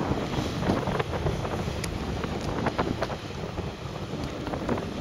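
Wind rumbling on the microphone, with the engine of a Sea-Doo 3D jet ski running at speed some way off across choppy water, with scattered short crackles.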